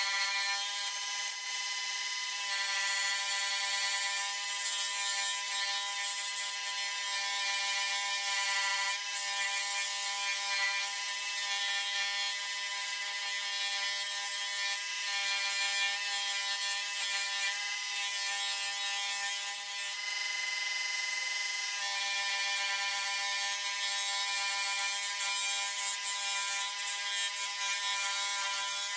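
Bench scroll saw running steadily, its reciprocating blade cutting through a small piece of wood: a constant motor hum under a high rasping cutting noise that grows and fades as the piece is turned and fed.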